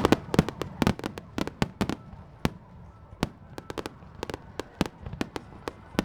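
Fireworks bursting overhead in a rapid, irregular volley of sharp bangs, thickest in the first two seconds, then more spaced out.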